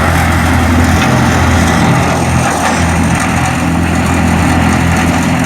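Tractor-driven wood chipper running at speed and chewing up branches, a dense steady shredding noise over the tractor engine's even drone.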